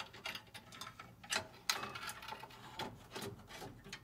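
A metal servo amplifier module being slid and pushed into its mounting slot: irregular light scrapes and clicks as its chassis rubs against the mounting plate and screws.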